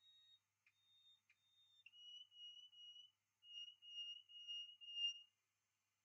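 Faint high-pitched electronic beeps, each held about half a second, stepping between a few pitches: a couple of higher notes, then a run of beeps repeating about twice a second that stops suddenly near the end. Two soft clicks about a second in.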